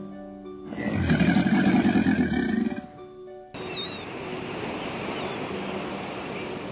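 A large animal's loud, low, rough grunting call lasting about two seconds, over background music. About three and a half seconds in, it cuts abruptly to a steady noisy outdoor ambience with the music still faintly under it.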